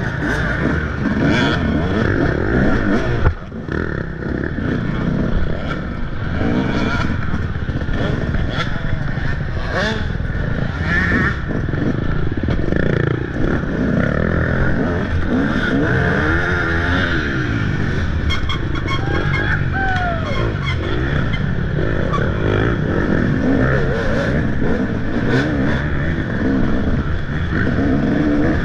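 Motocross dirt bike engine revving hard, its pitch rising and falling repeatedly as the rider works the throttle and gears. About three seconds in, the engine dips out briefly.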